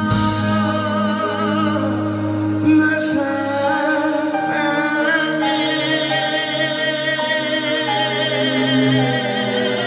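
Live male vocal singing over instrumental accompaniment, holding long notes with a strong vibrato.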